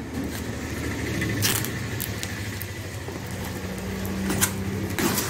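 Packing tape on a cardboard parcel being slit with a small blade and peeled away, with a few sharp rips: one about a second and a half in and two near the end. A steady low hum like a running engine sounds underneath throughout.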